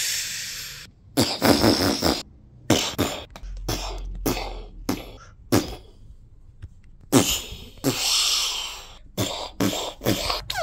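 Mouth-made battle sound effects: a long hissing 'pssh' for a smoke grenade fading out about a second in, then a run of short spitting bursts for gunfire and explosions, a second long hiss around eight seconds in, and a falling whistle at the very end.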